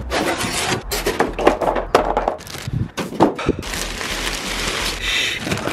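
Cardboard and plastic packaging being pulled off and handled: a run of cracks and crackles, turning to a steadier rustle near the end.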